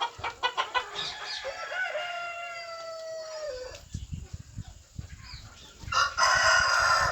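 Chickens clucking rapidly, then a rooster crowing in one long drawn-out call; low thumps follow, and near the end another loud rooster crow.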